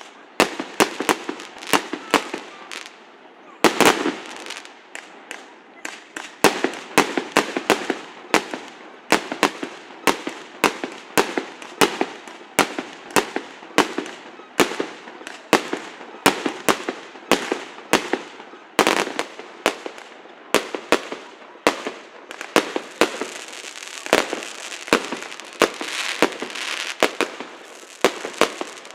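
Fireworks display: a fast, continuous run of sharp bangs, several a second, with a stretch of dense crackling in the last few seconds.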